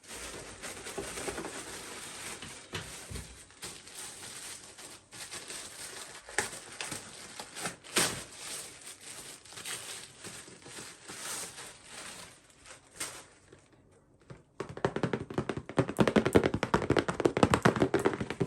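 A shipping package being handled and opened by hand: rustling and crinkling with scattered taps and thunks, then a dense run of rapid crackling over the last few seconds.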